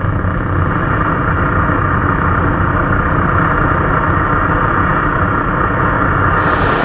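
MIG (gas metal arc) welding arc in spray transfer on aluminum, a loud, steady, even hiss and buzz without pops or crackle. It sounds dull and muffled until shortly before the end, when it suddenly turns brighter.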